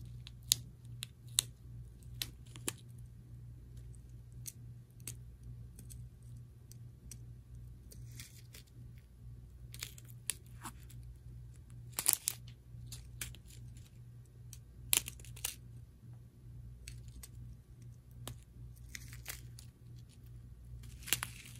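Thin plastic drill bags crinkling and crackling as they are handled, in scattered crackles that are loudest about twelve and fifteen seconds in, over a low steady hum.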